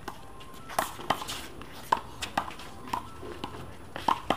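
Small rubber handball in a one-wall rally, struck by hand and smacking off the concrete wall and court: a series of sharp slaps at irregular intervals, with sneakers scuffing on the concrete.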